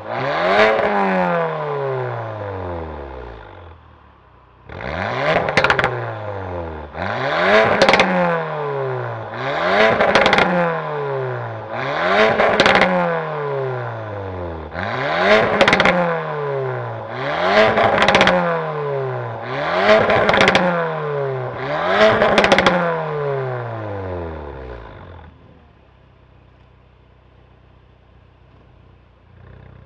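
Porsche Macan 2.0T's turbocharged four-cylinder engine through a valved catback exhaust, revved in about ten quick throttle blips every two to three seconds, each one rising sharply and then falling back toward idle. Near the end the blips stop and it settles to a quiet idle.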